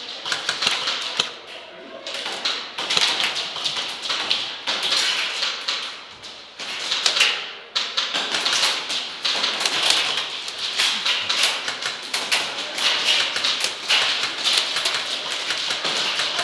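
Airsoft gunfire: dense, rapid clicking in overlapping bursts, with brief lulls about two and six seconds in.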